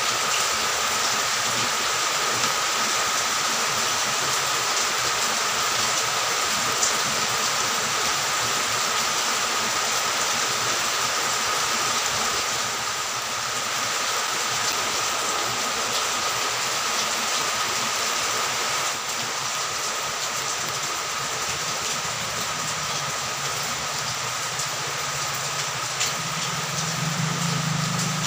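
Steady hiss of running water that hardly changes throughout.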